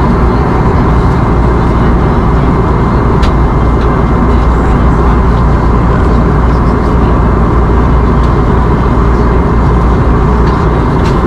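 Steady cabin noise of an Airbus A321neo in cruise: the rush of airflow over the fuselage and the hum of its CFM LEAP-1A turbofans, heard from a window seat over the wing, with a faint steady whine above it.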